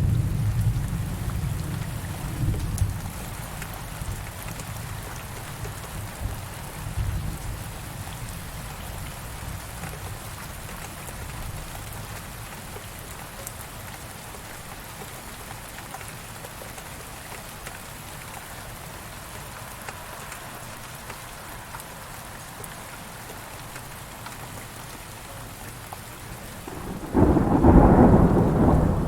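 Thunderstorm with steady heavy rain. A roll of thunder rumbles and fades over the first few seconds, with fainter rumbles around seven seconds in. A sudden loud crack of thunder comes about two seconds before the end.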